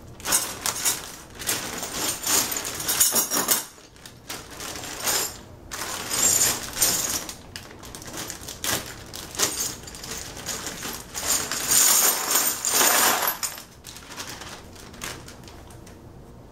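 Clear plastic parts bag crinkling as it is cut open, and metal furniture hardware (bolts, cam-lock nuts, brackets) and wooden dowels clattering into a plastic tub, in irregular bursts.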